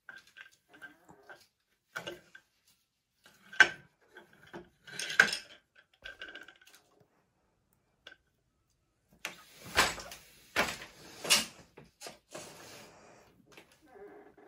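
Wooden four-harness floor loom being worked: clacks and knocks from the boat shuttle, beater and frame as weft is laid in, with three louder knocks close together about ten seconds in.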